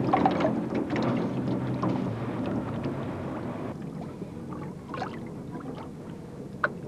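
Water sloshing and splashing as hands work wet paper pulp for handmade paper, with small drips and splashes. It grows quieter about halfway through.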